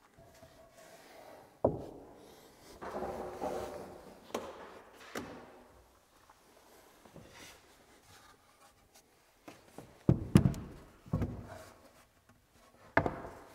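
Heavy timber stair tread being set onto glued stringers: wooden knocks, scraping as the board is slid into position, and a cluster of thuds about ten seconds in as it is pushed down and seated.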